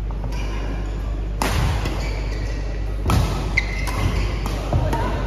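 Badminton rackets striking the shuttlecock during a doubles rally: several sharp hits a second or two apart, over a steady low hum.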